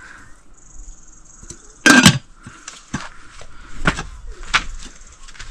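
Cookware being handled: pots and utensils knocking and clattering, with one loud clatter about two seconds in and a few sharper knocks after it.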